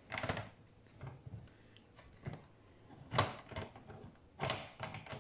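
Slip-joint pliers working at the metal centre nut of a VCR's video head drum: a few sharp metallic clicks and scrapes as the jaws grip and twist, the loudest about three and about four and a half seconds in, the second with a brief ring.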